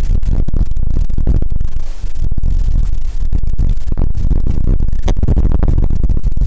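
Strong wind buffeting the microphone: a loud, continuous low rumble with crackling, easing briefly about two and three seconds in.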